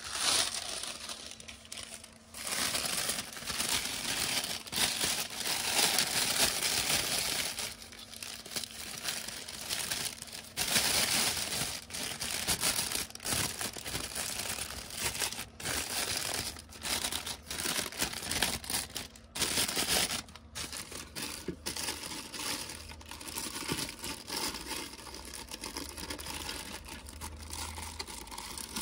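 Thin plastic garbage bag crinkling and rustling in uneven bursts as it is handled, opened out and fitted over the rim of a plastic bin.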